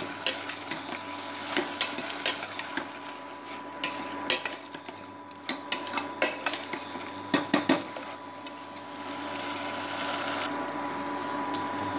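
A perforated stainless-steel skimmer stirring and scraping a thick masala of meat, tomato and herbs in a stainless-steel pot: irregular metal-on-metal clinks and scrapes over a soft sizzle. The clinks thin out after about eight seconds, leaving the faint sizzle and a steady thin high tone.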